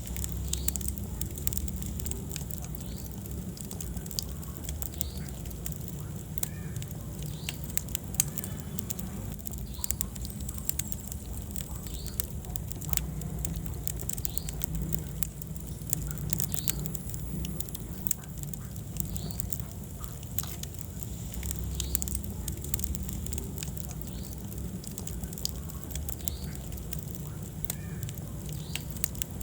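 Wood fire burning in a fireplace: a steady low rumble of flames with frequent irregular crackles and pops, and occasional short high-pitched squeaks.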